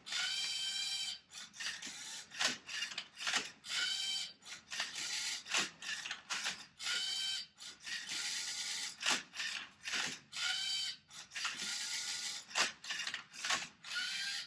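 LEGO Mindstorms EV3 MindCuber robot solving a Rubik's cube. Its motors whine in repeated runs of about a second, each rising then falling in pitch, as the turntable spins and the arm tilts the cube, with sharp clicks between the moves.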